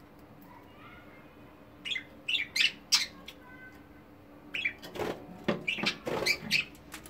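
Budgerigars giving short, sharp chirps in two bouts, the first about two seconds in and a busier one about five seconds in, with a flutter of wings during the second bout.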